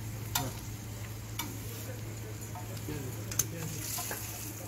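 Hot oil sizzling in a small iron frying pan, with a few sharp metal clinks of a steel spatula against the pan, the loudest about three and a half seconds in. A steady low hum runs underneath.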